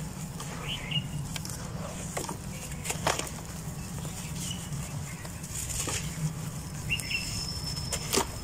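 Dry, crumbly dirt rustling and trickling as hands break lumps off a block and let the powder pour into a tub, with several sharp cracks as chunks snap, the loudest about three seconds in and near the end.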